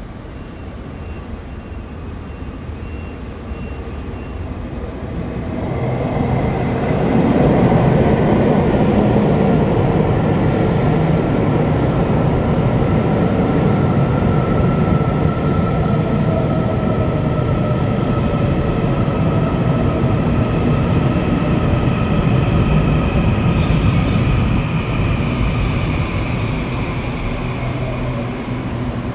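Local passenger train arriving at a station: the rumble of the wheels builds about a quarter of the way in, then holds loud with a long, drawn-out squeal of wheels and brakes as it slows, easing off near the end to a low steady hum.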